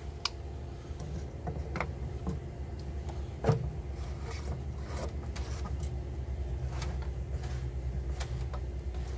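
Plastic union nuts being screwed by hand onto a pool filter tank's PVC plumbing: scattered light clicks and a sharper knock about three and a half seconds in, over a steady low mechanical hum.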